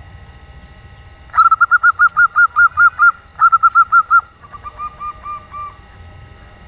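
Female zebra dove (perkutut) calling: a fast run of short, even cooing notes about a second and a half in, a second quick run right after, then a softer, slightly lower run of notes.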